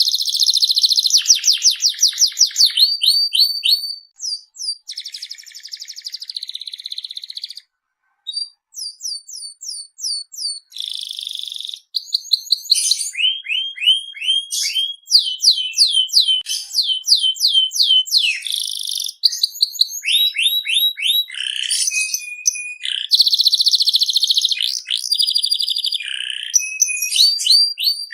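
Canary singing a long, varied song of fast trills, rolls and rows of repeated sweeping notes, with a short pause about eight seconds in.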